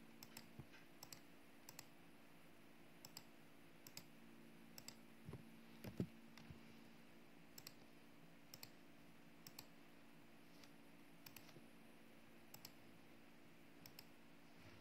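Computer mouse clicking, mostly in quick pairs about once a second, over a faint steady hum. About six seconds in, a single dull thump is the loudest sound.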